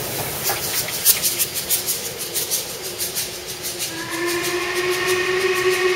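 LMS Black Five steam locomotive moving along the platform with rapid hissing beats, about five a second. About four seconds in, its whistle sounds: a steady blast of several tones that holds on.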